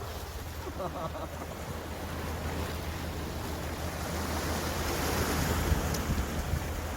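Sea waves and wind on the microphone: a steady rushing with a low rumble, building to a louder swell about five seconds in before easing.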